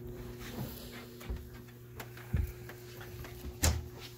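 Footsteps and knocks of someone stepping from a wooden deck into an RV, with low thuds and one sharp knock near the end, over a steady low hum.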